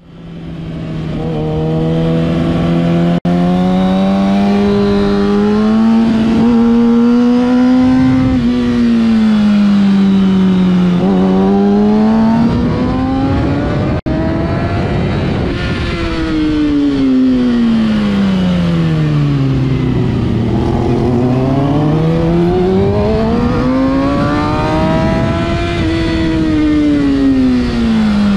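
Kawasaki Ninja ZX-6R 636 inline-four engine heard onboard at track speed, its pitch climbing as it accelerates and sweeping down as it slows, several times over, with a constant rushing noise. The sound fades in over the first second or so and cuts out for an instant twice.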